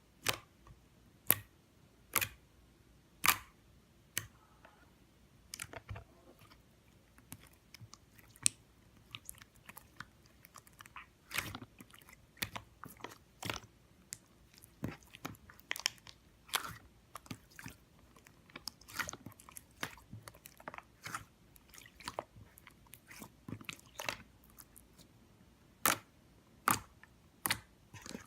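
Slime being played with by hand, giving off irregular sharp clicking pops and crackles: a few loud single pops, with denser runs of small crackling clicks through the middle.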